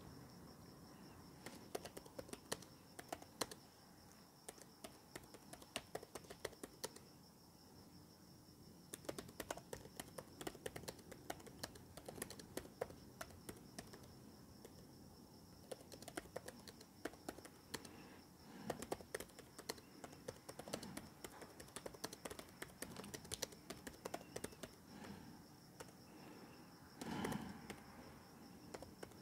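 Typing on a laptop keyboard: light key clicks in quick, uneven runs, with short pauses between them.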